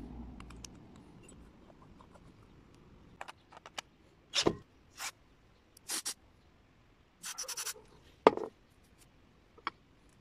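Short bursts of a cordless drill-driver with a hex bit loosening the float bowl bolt of a Honda GX160 carburetor, among small clicks and knocks of carburetor parts being handled over a plastic bowl. The loudest sound is a single sharp knock a little after the eighth second.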